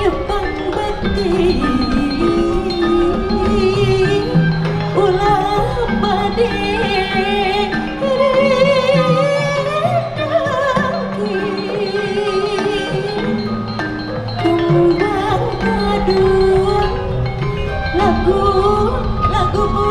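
Sundanese gamelan degung ensemble playing: a steady pattern of struck metallophone and gong-chime notes over held low tones, with a wavering melody line above.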